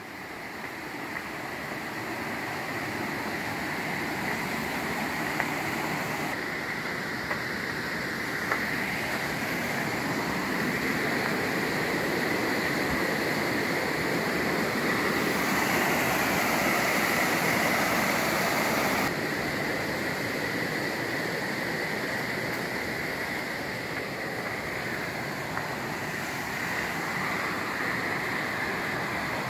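Steady rushing of a creek running over rocks. It is louder and brighter for a few seconds in the middle.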